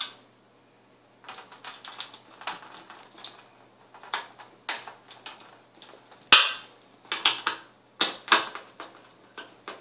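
Irregular clicks and knocks of a screwdriver and wire handling in a sheet-metal fluorescent light fixture as the ground wire is fastened under the fixture's ground screw. The loudest knock comes a little past six seconds in, followed by a quick run of sharper clicks.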